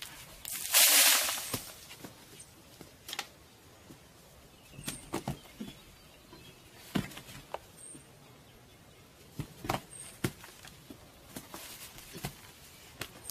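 Hand digging in soil: a loud scraping rush about a second in, then scattered knocks and scrapes of digging tools in the dirt.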